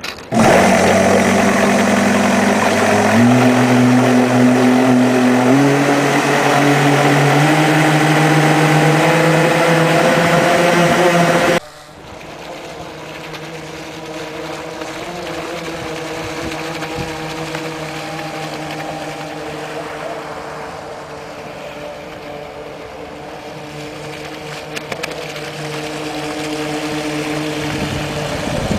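Twin Venti 660 electric motors of an RC boat running close up, their whine stepping up in pitch twice and then climbing slowly as the throttle is opened, while their current draw is metered; the sound cuts off suddenly about twelve seconds in. After that, the boat's electric motors are heard further off as a quieter steady whine as it runs on the water, drawing a lot of current.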